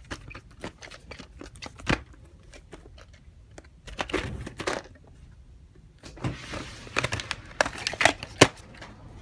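Hard plastic clamshell VHS cases being handled and swapped: scattered clicks and knocks of the plastic cases with some rustling, getting busier over the last three seconds.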